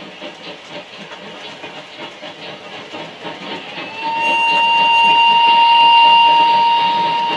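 Steam-locomotive sound of an OO gauge model locomotive: a hissing running noise, then, about four seconds in, a single steady whistle blast lasting about four seconds, which is the loudest part.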